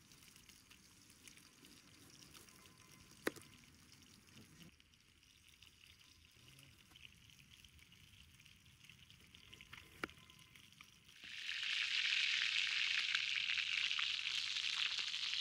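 A knife quietly slicing a tomato on a wooden plate, with two sharp clicks. About eleven seconds in, chicken pieces start sizzling loudly in a steel frying pan over a wood fire.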